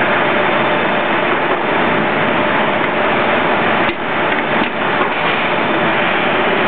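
Steady mechanical running noise from a temple-bending machine and the workshop machinery around it, with two sharp clicks from the bending mechanism about four seconds in.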